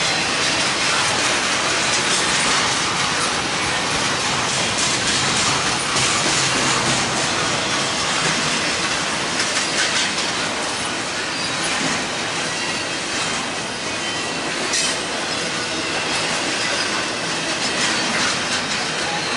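Double-stack intermodal freight cars rolling past: a loud, steady noise of steel wheels running on the rails, with occasional sharp clicks from the wheels and well cars.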